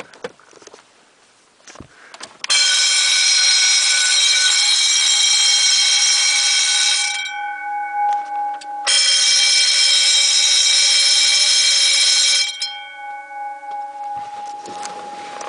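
Wheelock electric fire alarm bells ringing loudly in two bursts, the first about four and a half seconds long and the second about three and a half, each cut off abruptly with the gongs humming on as they ring down. A few faint clicks come before the first burst.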